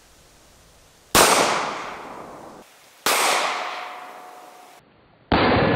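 Pistol shots from a Glock 17 fitted with a 22 TCM 9R conversion barrel, fired into soft body armor hung on a steel plate: two sharp cracks about two seconds apart, each echoing and fading. Near the end a third, duller boom starts and holds on.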